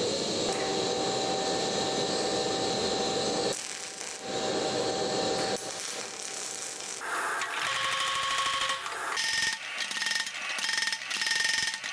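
Metalworking sounds in quick succession: a steady power-tool noise for the first few seconds, a welding arc in the middle, then a mechanical power hammer striking a red-hot steel bar in a fast, even rhythm near the end.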